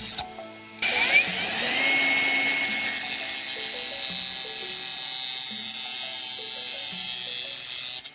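A small electric power tool's motor spins up with a rising whine about a second in and then runs at a steady high pitch with a hiss, used to sharpen the end of a copper tube; it cuts off right at the end. Background music plays underneath.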